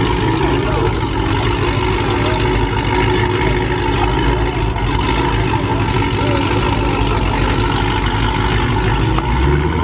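Supercharged V8 of a Dodge Charger Hellcat idling loudly at the drag strip's start area. Its note picks up slightly near the end.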